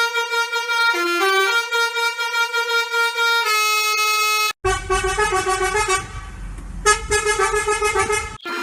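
Bus horn sound effect played as a tune in stepped, held notes. About halfway it cuts off abruptly and a second, remixed version of the horn tune starts over a low bass beat.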